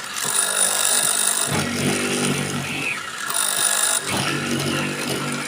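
Homemade mortising machine running, its electric motor humming steadily with a harsher cutting noise that comes and goes every second or two.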